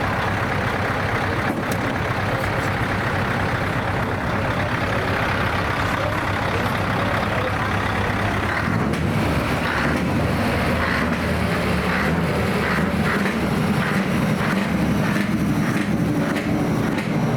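V8 diesel show-truck engines running. About nine seconds in, the engine note rises and holds higher, as one is revved.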